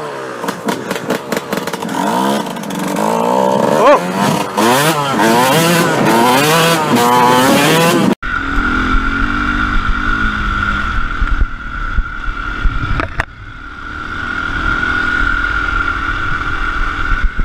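A 125 cc two-stroke enduro dirt bike revving up and down repeatedly as it is ridden and shifted. About eight seconds in, the sound cuts to a different dirt bike held at a steady pace, with a low rumble of wind on the microphone.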